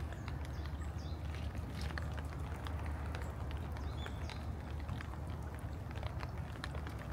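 Walking in the rain: footsteps on a wet garden path and irregular ticks of raindrops, over a steady low rumble.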